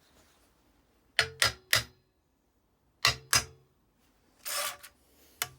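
A small brass hammer knocking a tight-fitting steel part into place: three quick ringing metal strikes, then two more, followed by a short rush of noise and a single click near the end.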